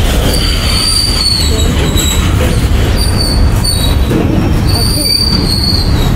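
Goods train's freight wagons rolling past close by: a steady heavy rumble with high-pitched wheel squeals that start and stop several times.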